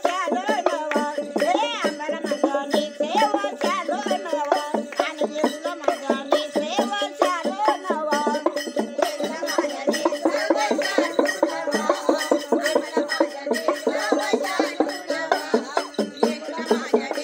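Women singing a Yellamma devotional folk song in Marathi, led by an older woman's voice, over a steady two-note drone and a fast, even rhythm struck on small hand-held folk instruments.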